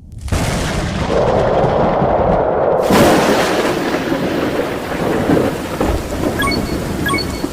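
Thunderstorm sound effect: steady rain with rolling thunder, including a sharp crack about three seconds in.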